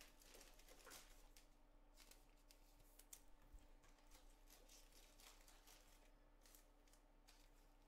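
Near silence: faint scattered ticks and rustles of trading cards being handled and sorted, over a faint steady electrical hum.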